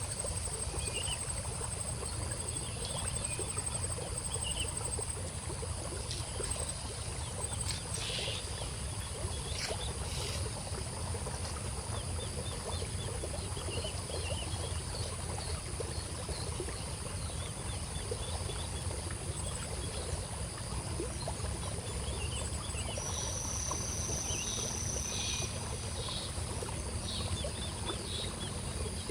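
Outdoor ambience: a steady low rumble with faint, scattered bird chirps. A high pulsing trill runs through the first few seconds, and a brief high whine comes about 23 seconds in.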